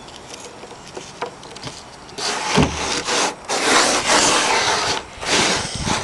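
Hands rubbing and smoothing the sides of a damp plaster mound: a run of rasping strokes that starts about two seconds in, with short breaks between them and one low thump early in the run.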